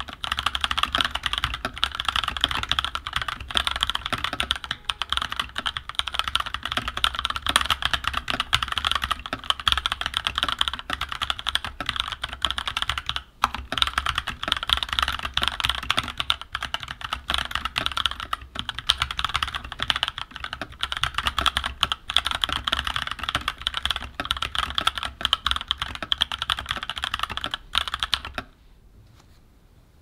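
Continuous fast typing on a Keychron K14 mechanical keyboard with Gateron Brown tactile switches: a dense clatter of keystrokes with one brief pause near the middle. The typing stops about a second and a half before the end.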